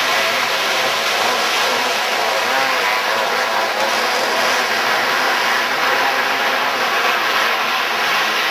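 Several winged outlaw dirt karts racing together, their engines running hard under a dense, steady wash of noise, with overlapping engine notes rising and falling in pitch as they go around the track.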